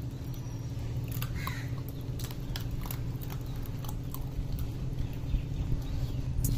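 Puppies chewing crab pieces: scattered small crunches and clicks over a steady low hum.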